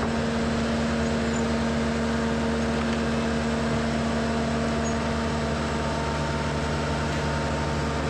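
Weiler asphalt paver running steadily while laying fresh asphalt: an even engine hum with a constant tone, unchanging throughout.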